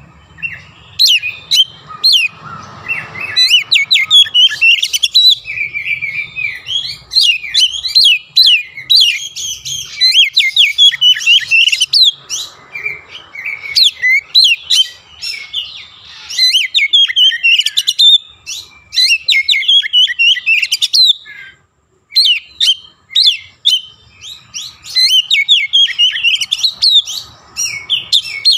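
Oriental magpie-robin (kacer) singing non-stop, a fast string of sharp whistled notes and quick slurs, its song laced with mimicked Javan myna (jalak kebo) calls. The song breaks off briefly about three-quarters through, then carries on.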